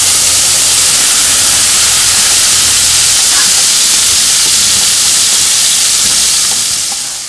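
Thick tamarind extract poured into hot gingelly (sesame) oil with fried dry red chillies, mustard seeds and curry leaves, setting off a loud, steady hissing sizzle as the water in the extract hits the oil. The sizzle dies down near the end.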